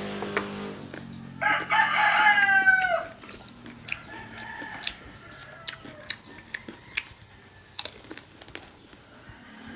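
A rooster crows once, about a second and a half in: one call lasting about a second and a half that drops in pitch at the end. After it come sharp crunching clicks of crispy fried chicken being bitten and chewed.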